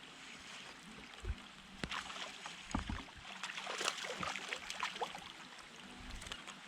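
Rain falling on the lake and on a kayak: a steady hiss with many scattered drips and clicks, a few low knocks of the hull and gear, and small splashes near the middle.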